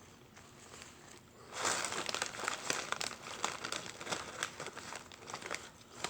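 Food packaging crinkling and rustling as it is handled, a dense run of crackles starting about a second and a half in.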